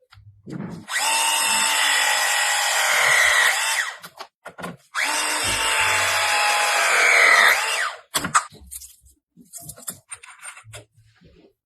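Handheld power tool, drill-like, run in two bursts of about three seconds each with a high whine whose pitch bends near the end of each burst, then a few light knocks.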